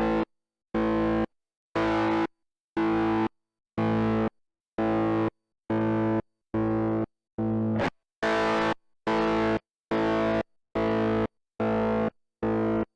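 Distorted Fender Stratocaster chord chopped fully on and off by the Djenter's Little Helper pedal's latching tremolo, cutting to silence between pulses. The pulses come about once a second, then quicken, and the chord is restruck about eight seconds in.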